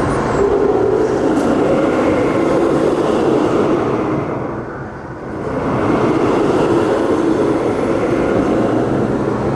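Ice Breaker roller coaster train running along its steel track on an empty test run: a steady rumble of the wheels that fades about halfway through and swells again.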